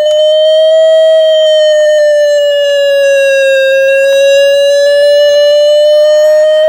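Toy ambulance's electronic siren: one continuous buzzy wail that falls slowly to its lowest pitch about halfway through and then climbs back up, without a break.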